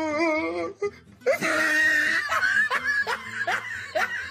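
A person laughing: a wavering, drawn-out laugh, then after a short pause a run of rapid, high-pitched laughter in short rising bursts.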